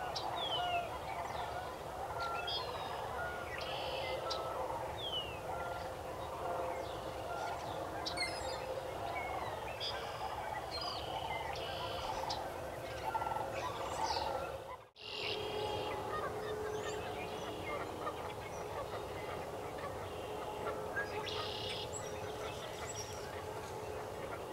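A steady chorus of many wild birds calling at a distance: a dense din of honking and gabbling from a large flock, with short high chirps and whistles from smaller birds scattered over it. The sound cuts out for a moment just after the middle, then carries on as before.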